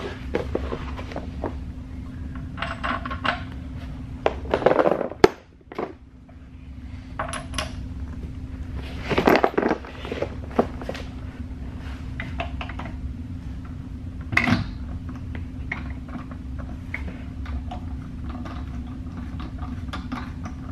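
Metal clinks, scrapes and knocks as an alloy wheel is seated onto a hub spacer and new lug nuts are threaded onto it by hand, with a few louder knocks among the lighter clicks. A steady low hum runs underneath.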